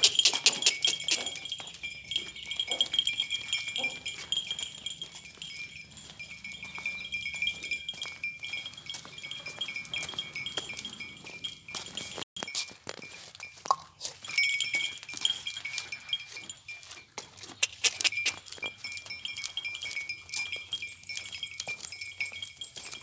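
Goats at a farm pen with a metallic jingling and ringing that comes and goes, louder at the start and again in the middle and near the end, among quick clicks and knocks.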